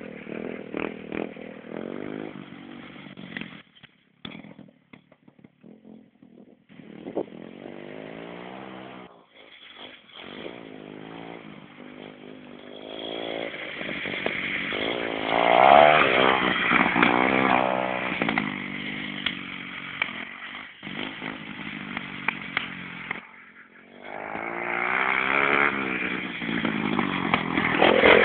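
Dirt bike engine revving up and down as it is ridden over a bumpy track, its pitch climbing and falling with each burst of throttle. The engine sound drops away briefly several times and is loudest about halfway through and again near the end, as the bike comes close.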